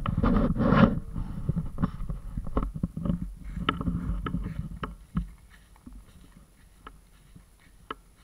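Irregular rustling, clicks and knocks of movement against an action camera held low over grass, loudest in the first second and dying away after about five seconds.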